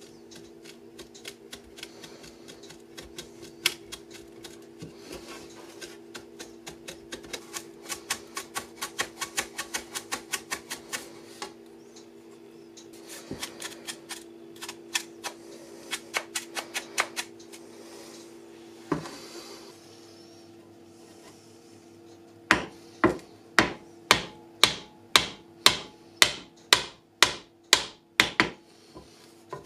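A wooden saw handle being knocked off a rusty handsaw blade with repeated sharp blows, about two a second, starting about three-quarters of the way in. Before the blows come lighter scattered clicks and taps over a steady low hum.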